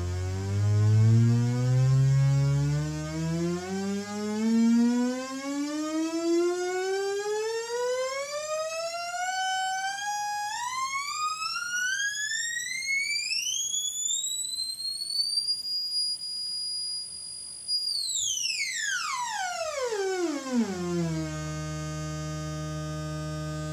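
Future Sound Systems Brunswick DIY synthesizer's VCO sawtooth heard straight through the VCA, a buzzy tone. It sweeps slowly up from a low pitch to a high squeal over about fifteen seconds and holds briefly, then sweeps quickly back down to a steady low note.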